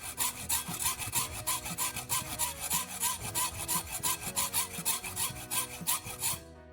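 Hacksaw cutting a notch into the end of a steel bolt, in quick even back-and-forth strokes about four a second that stop shortly before the end.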